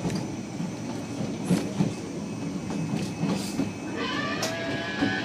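Disneyland Railroad train running along the track, heard from aboard: a steady rumble with scattered clacks of the wheels on the rails. A brief higher tone joins in about four seconds in.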